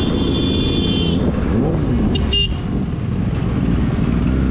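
Vehicle horn sounding over the steady rumble of a moving scooter and wind on the microphone; the horn stops about a second in, then gives a short double toot about two seconds in.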